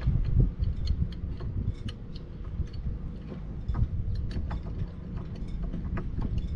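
Scattered small metal clicks and clinks from a stainless steel fishing rod holder's clamp being handled and fitted onto a boat's ski tower tube, over a low steady rumble.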